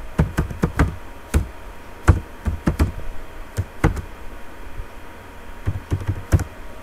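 Computer keyboard keys tapped in an uneven run of keystrokes as a password is typed, thickest in the first four seconds, with a few more strokes near the end.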